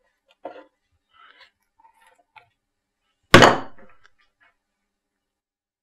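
Faint chewing and handling sounds of someone tasting food, then a single loud thump about three seconds in that dies away in under a second.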